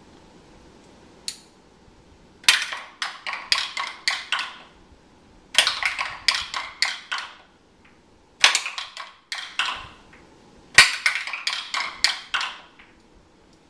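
Kitchen tongs clacking in four quick runs of sharp clicks, six to eight clicks in each run.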